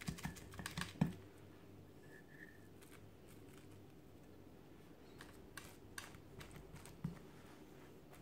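Faint taps of a small cup tamping a warm sesame brittle mixture flat in a glass baking dish: a quick run of soft taps in the first second, then a few scattered light clicks later.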